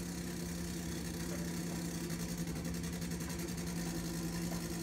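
Nitro Funny Car engine idling steadily with a fast, even pulse, heard through a television's speakers.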